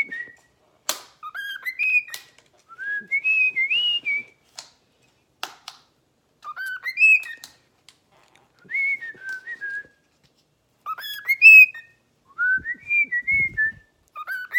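Cockatiel whistling a short warbling tune over and over, about six rising-and-falling phrases with pauses between them, with a few sharp clicks in between.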